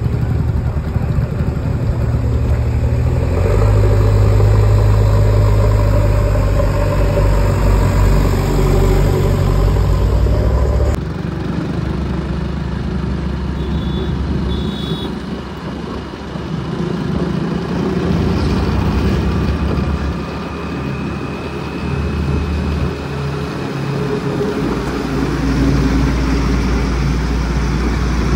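Heavy diesel engine of earth-moving machinery running at working revs, louder from about three seconds in. About eleven seconds in the sound changes abruptly, and the engine note then rises and falls with the load.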